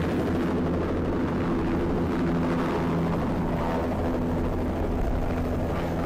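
A steady, low mechanical drone with a constant-pitch hum and a rushing haze above it.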